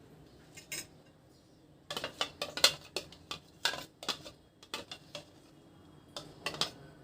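A metal spoon clinking and scraping against a metal strainer and bowl while mashing blended mango pulp through the mesh: a couple of light clicks, then a quick run of clatters, then a few more near the end.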